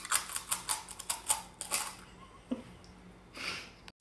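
Crisp crunching as a raw carrot stick is bitten and chewed: a quick, irregular run of crunches for about two seconds. Then a soft knock and a short hiss near the end.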